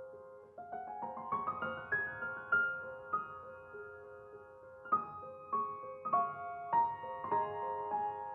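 Background piano music: a soft repeating two-note figure, a rising run of notes about a second in, and then a string of struck chords from about five seconds in.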